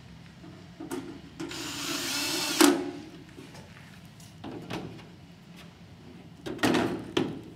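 Small cordless drill with a Phillips tip whirring for about a second as it drives a screw into the ozone machine's sheet-metal cover, ending in a sharp knock. Then a few knocks and clatter as the drill is set down and the metal box is handled.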